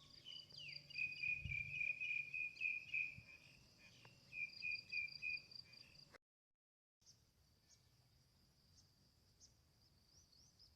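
Insects chirping outdoors in quick repeated pulses, with the sound dropping out briefly about six seconds in, then returning fainter.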